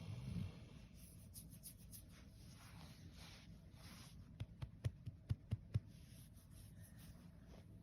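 Sleeping dog: the tail of a low snore in the first half second, then quieter stretches with a quick run of about seven sharp clicks or taps about four and a half seconds in.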